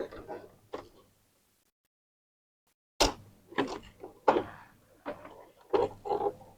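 Plastic parts of an inkjet printer clicking and knocking as they are worked loose and handled, likely the paper-path rollers being pulled out: a few knocks at the start, a pause, then about six knocks and clatters in the last few seconds.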